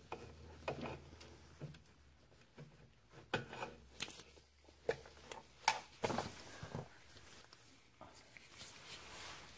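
Gloved hands working an old, oil-damaged rubber steering rack boot off the rack: irregular rubbing and rustling with scattered clicks, the loudest in the middle.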